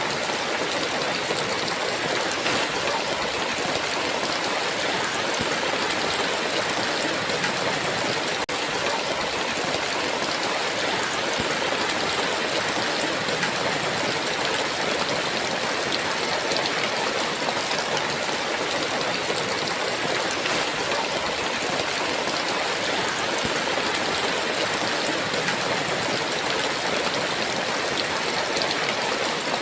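Heavy rain pouring down steadily in an even, unbroken hiss.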